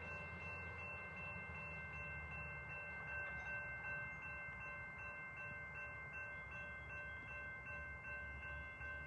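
Railroad grade-crossing bell ringing steadily and faintly, its rapid strokes blending into a continuous bell tone. The crossing has activated for an approaching train.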